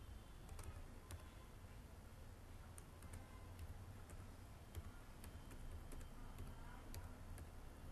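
Faint computer keyboard typing: irregular single keystrokes, about two a second, over a steady low hum.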